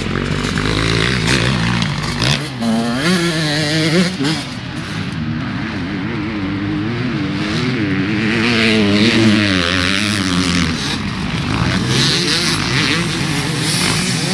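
Dirt bike engines running on a motocross track, their pitch rising and falling again and again as the riders open and close the throttle through the corners and jumps.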